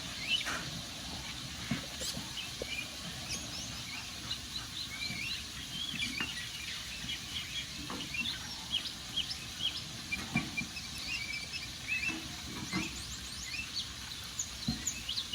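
Wood fire crackling, with scattered sharp pops over a steady hiss, while small birds chirp and twitter.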